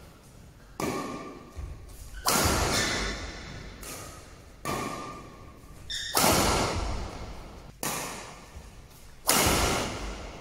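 Badminton rackets striking a shuttlecock in a fast rally of smashes and returns: a string of sharp cracks, about one every second and a half, each echoing in a large hall.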